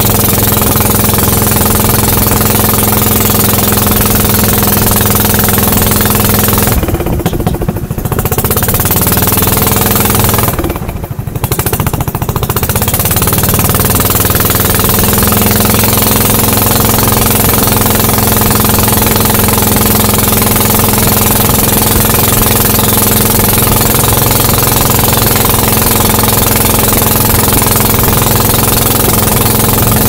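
Motorboat engine running loudly at speed. About seven seconds in and again about eleven seconds in, the throttle is eased off and the engine note drops, then climbs back up to speed.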